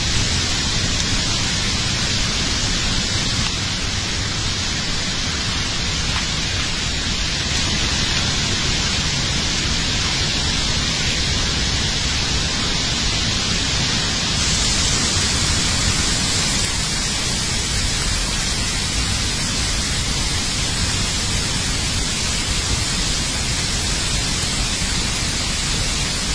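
Steady rushing of a muddy flash-flood torrent, a loud unbroken noise that turns a little brighter and hissier about halfway through.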